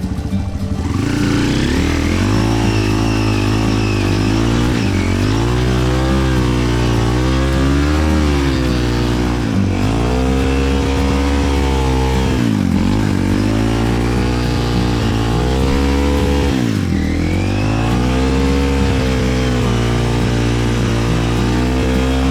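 Trail motorcycle engine revving hard and unevenly, its pitch swinging up and down with sharp drops every few seconds, as the rider repeatedly tries and fails to get up a muddy climb.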